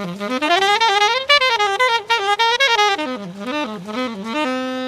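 Solo saxophone playing a quick melodic run that climbs and then falls, ending on a long held low note near the end.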